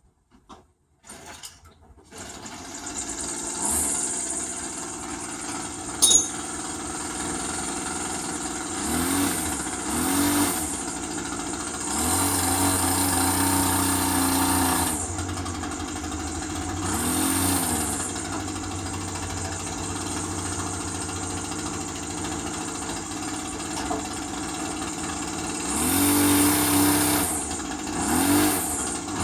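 Small engine of a riding lawn mower cranks and starts about two seconds in, then runs, revved up and back down several times. A sharp click about six seconds in.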